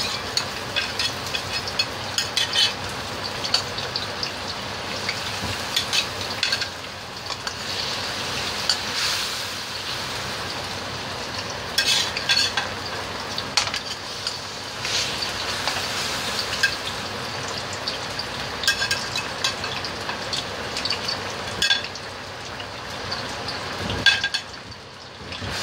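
Sauce sizzling and bubbling in a wok around stuffed eggplant and bitter gourd pieces, a steady hiss with frequent crackling pops, and one louder knock near the end.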